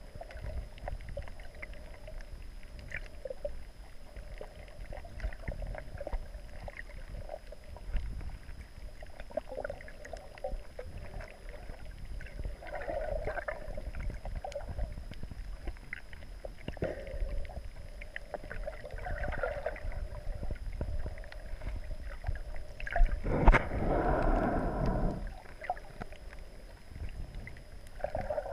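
Muffled underwater sound through a camera's waterproof housing: a steady low rumble of moving water with hollow swells every few seconds. The loudest swell comes about 23 seconds in and lasts about two seconds.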